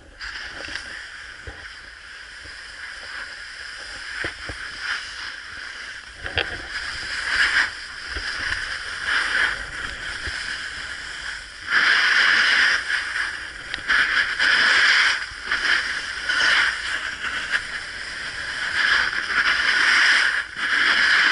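Snowboard sliding and scraping over packed snow, a hissing rush that swells and fades every second or two as the board turns and its edge bites.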